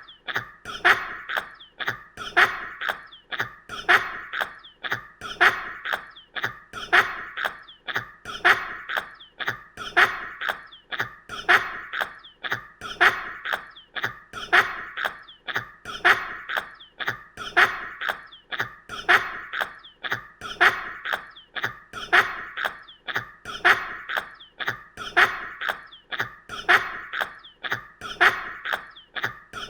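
An animal's wheezing breaths, repeating evenly about once every second and a half, each a raspy squeak-like wheeze.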